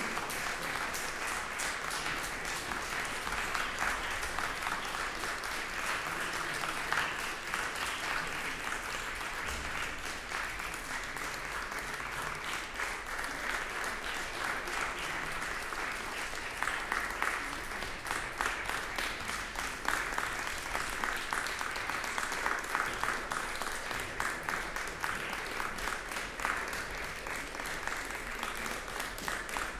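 Concert audience applauding: dense, steady clapping.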